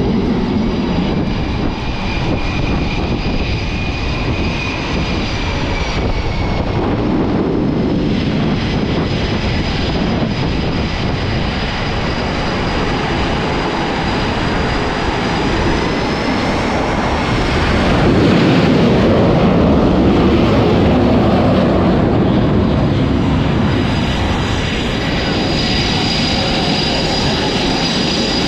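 Jet aircraft engines running: a loud, steady roar with high turbine whines that drift slowly in pitch, swelling louder about eighteen seconds in.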